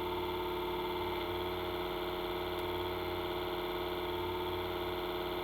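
Steady background hum made of several held tones at an even level, from an electrical or mechanical device running in the room.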